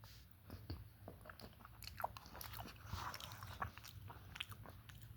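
Faint chewing of a mouthful of taquito, with small scattered clicks and soft crunches.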